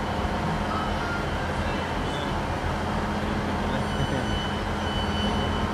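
Class 158 diesel multiple unit idling at the platform: a steady low hum from its underfloor diesel engines. A thin high tone joins about four seconds in.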